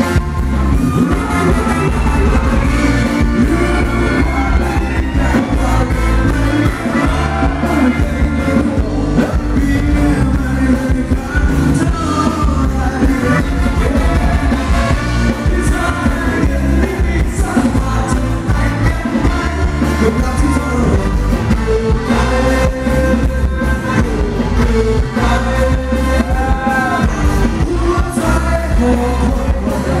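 Live band playing Thai ramwong dance music with a singer, over a steady beat.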